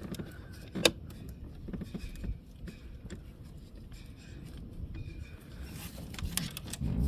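Small clicks and scrapes of a metal pick prying at the latch of a plastic electrical connector, with one sharp click about a second in.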